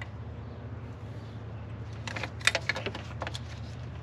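A quick run of small metallic clicks and ticks, about halfway through, from an oil filter cap wrench being fitted and worked on an old oil filter to loosen it, over a steady low hum.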